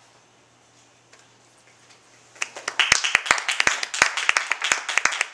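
A quiet pause of about two seconds, then an audience breaks into applause, the clapping building quickly and continuing.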